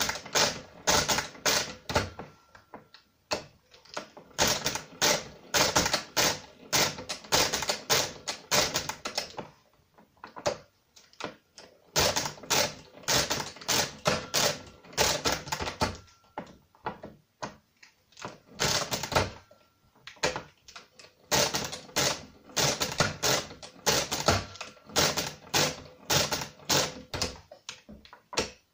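Brunsviga pinwheel mechanical calculator being worked by hand: rapid runs of metallic clicks and clacks as the crank is turned and the carriage and levers are worked, broken by short pauses of a second or two between runs.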